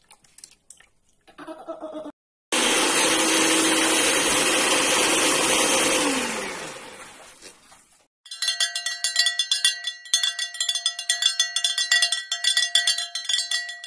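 Electric hand mixer beating egg in its bowl: it starts abruptly, runs steadily at speed, then is switched off and winds down with a falling pitch. After a short gap, a fast rhythmic chiming sound effect plays to the end.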